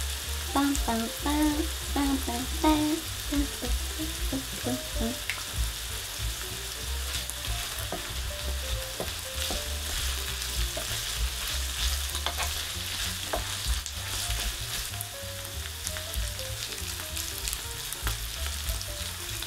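Ground pork and chopped onions sizzling in a frying pan as a wooden spatula stirs and scrapes them, with scattered clicks of the spatula on the pan. The mixture is frying down until the onions are translucent.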